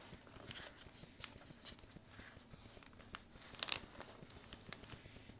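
A sheet of paper being folded and creased by hand: faint, scattered crinkles and rustles, with a sharper crackle a little past three and a half seconds in.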